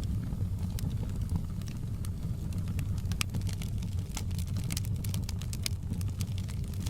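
Wood fire crackling in a fireplace, with many sharp, irregular pops and snaps over a steady low rumble of rain. The pops come thickest in the middle of the stretch.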